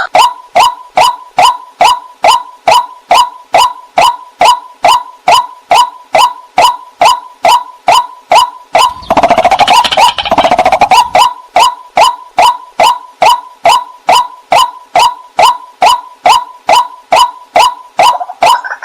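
White-breasted waterhen calling: one short note repeated evenly, about three a second. A rougher, denser stretch of calling comes about halfway through.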